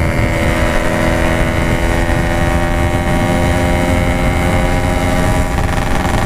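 Yamaha RX-King 135cc two-stroke single-cylinder motorcycle running at steady cruising revs through a Packing Power aftermarket exhaust, its pitch holding level throughout.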